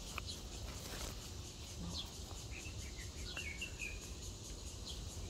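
Small birds chirping: scattered short, high chirps, with a quick run of notes a little past three seconds in, over steady faint outdoor background noise.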